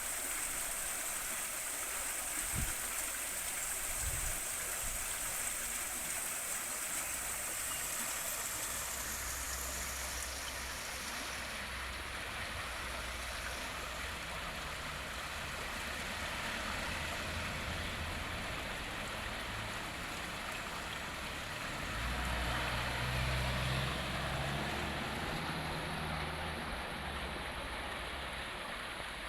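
River water flowing steadily, a continuous rushing hiss. A low rumble comes and goes beneath it, and two soft low knocks sound a few seconds in.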